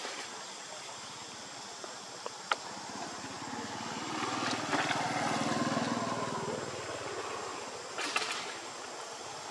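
A motor engine hums in the distance, swelling up and fading away over a few seconds as if passing by, loudest around the middle. A sharp click comes before it and a short burst of noise near the end.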